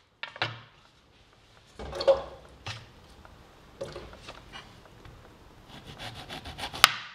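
Kitchen handling on a wooden cutting board: scattered knocks and clatter of a knife, board and cut pieces. Near the end a serrated knife saws into a lemon in a quick run of scratchy strokes, ending in a sharp click.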